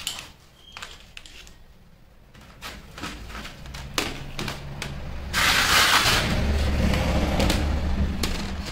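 Scattered light clicks and clinks of steel hex nuts being picked up and set down on a steel-topped workbench. About five seconds in, a louder steady rushing noise with a low hum sets in and holds.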